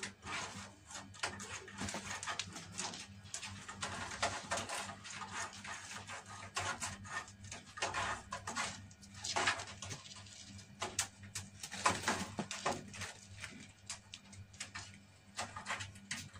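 Kittens' claws scratching, scrabbling and tapping irregularly against an upright post and a wooden floor as they play, over a low steady hum.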